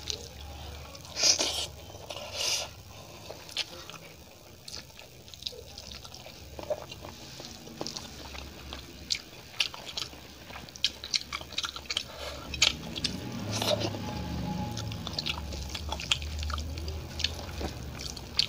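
Close-miked eating sounds: rice and curry squished and mixed by hand on a steel plate, with chewing and many short wet clicks. The two loudest clicks come about a second in and again a second later.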